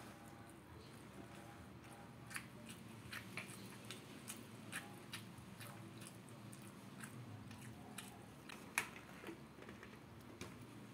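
A person chewing crispy fried tempe with rice: quiet, scattered crunches and mouth clicks, the sharpest a click about nine seconds in.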